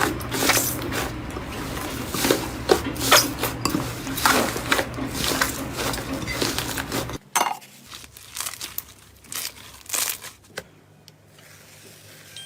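Slime being squeezed and pressed by hand, giving a dense run of crackling pops and clicks; about seven seconds in it cuts off suddenly to a quieter stretch with only scattered pops.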